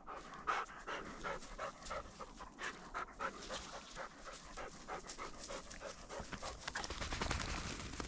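A Wachtelhund (German spaniel) panting rapidly and evenly, about three pants a second, close by, with rustling and footsteps in snowy undergrowth. A low rumble rises near the end.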